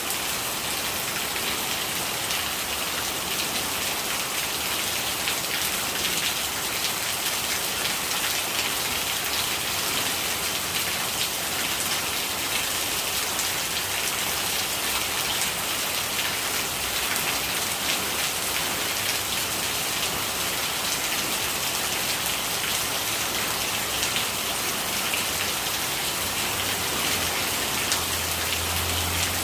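Steady rain falling on surfaces, a dense, even patter of drops at a constant level. A faint low hum comes in near the end.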